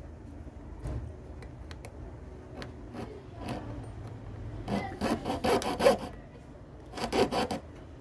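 Metal file rasping on a silver ring in quick back-and-forth strokes: a run of strokes a little after halfway and a shorter run near the end, with light clicks and taps before them.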